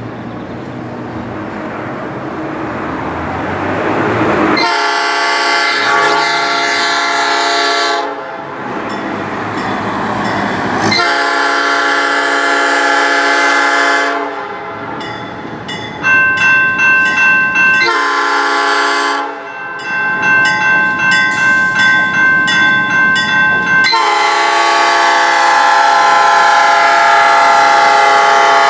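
Budd rail diesel car approaching with a rising rumble, then sounding its horn for a grade crossing: two long blasts, a shorter one, then a long blast held as it reaches the crossing. A crossing warning bell rings rapidly under the later blasts.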